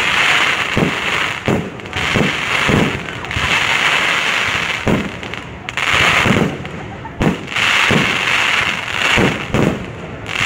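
Fireworks going off: ground fountains hissing and crackling as they spray sparks, with sharp pops and bangs at irregular intervals, about one or two a second.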